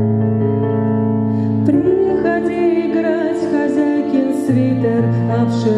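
A Kawai ES6 digital piano plays held chords. A little under two seconds in, a woman's singing voice comes in over it, accompanied by the piano.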